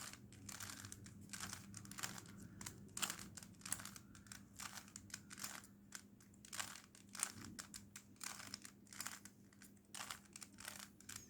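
A plastic 3x3 Rubik's cube being twisted by hand: its layers clack and click in a quick, irregular run of turns. A faint steady hum lies beneath.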